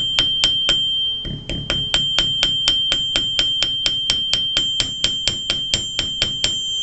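An 8-ounce ball peen hammer taps 16-gauge copper wire on a steel bench block in quick even blows, about four a second, with a brief pause about a second in. The block gives a high ring. The blows work-harden and flatten the round part of a hook clasp.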